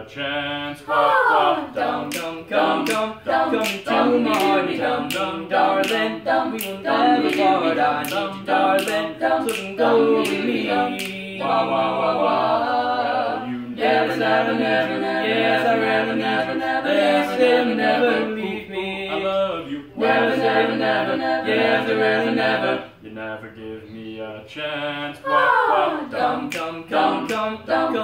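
Small mixed-voice a cappella group singing in close harmony, with finger snaps clicking about twice a second to keep the beat through much of it. A quick downward vocal swoop comes about a second in and again near the end.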